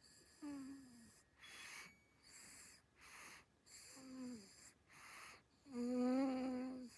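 Baby snoring: short raspy breaths about one a second, broken by a few hummed sounds that dip in pitch, and a longer, louder steady one near the end.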